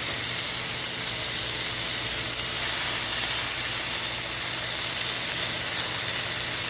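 Bacon sizzling steadily in a hot cast iron pan.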